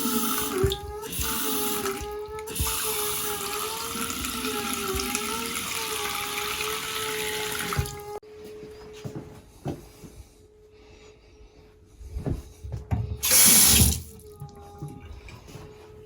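A faucet runs for about eight seconds and then shuts off, while a steady, high, humming tone sounds in the house plumbing throughout, wobbling in pitch while the water runs. A short, loud rush of noise comes near the end. The hum comes from a hose bib vacuum breaker whose diaphragm has failed, with a garden hose left running.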